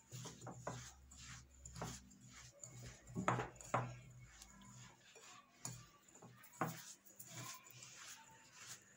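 Hands rubbing moist semolina with butter and oil in a glass bowl: a soft grainy rustle broken by scattered knocks of hands and bowl, two of them louder a little past the middle.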